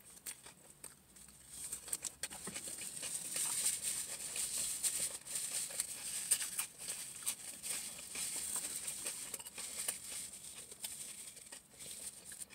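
Close-up eating sounds: chewing and lip smacking on a sandwich, with a paper napkin and wrapper rustling, made up of many small wet clicks that are busiest in the middle of the stretch.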